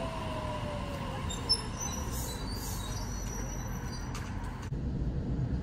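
Sydney Trains electric suburban train running along the platform, its motor whine falling in pitch over the first couple of seconds as it slows, with a low rumble and brief thin high squeals. Near the end the sound changes abruptly to a duller rumble.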